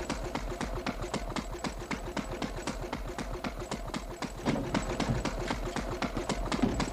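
A fast, even clicking rhythm, about five clicks a second, over a faint steady hum; a lower sound joins about four and a half seconds in.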